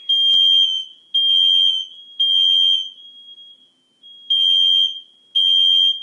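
Household smoke alarms sounding the code-3 evacuation pattern: three loud, high-pitched beeps, a pause of about a second and a half, then three more beeps. The alarms are going off for no apparent reason, a false alarm. A single faint click comes about a third of a second in.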